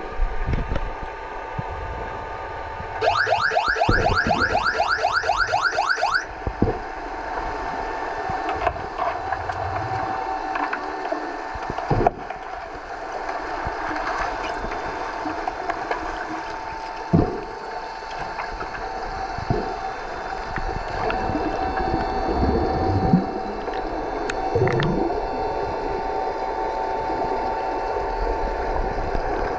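Heard underwater in a pool: the underwater hockey referee's electronic sounder gives a warbling signal of rapid rising chirps, about five a second, for about three seconds, marking the start of play. A steady hum then runs on, with scattered knocks and thuds as the players contest the puck on the pool floor.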